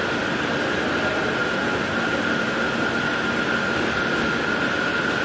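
Large drilling machine running steadily while it drills into a gearbox housing casting, with a steady high whine over a constant machine hum.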